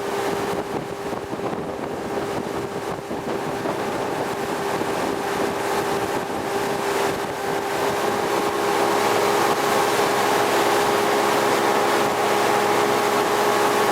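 Motorboat engine running with a steady drone over rushing wind and water noise, growing louder about halfway through.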